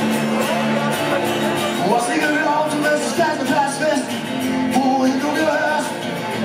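Live band playing acoustic guitars, with a voice singing a wavering melody over them from about two seconds in.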